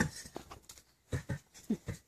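Soft, low horse nickers: a few short calls in the second half, the first little 'talks' between a mare and her newborn foal. A brief knock at the very start.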